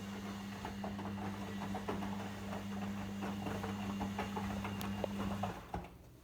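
Logik L712WM23 washing machine running: a steady low hum with many small irregular clicks and patter, which cuts off about five and a half seconds in.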